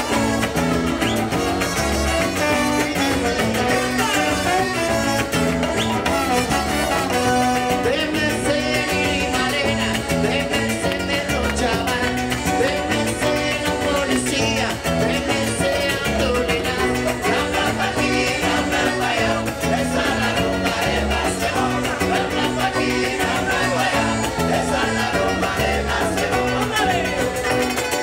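Live band playing upbeat Latin-style music with a steady beat: electric and acoustic guitars, accordion, brass and hand drums.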